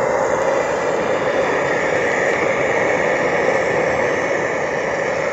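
Brass gas torch burning with a steady flame, a constant rushing noise, as it heats an oxalic acid vaporizer.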